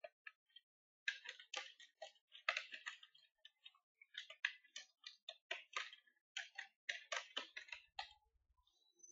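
Computer keyboard typing: a quick, irregular run of faint keystroke clicks. It breaks off twice for a moment and stops about a second before the end.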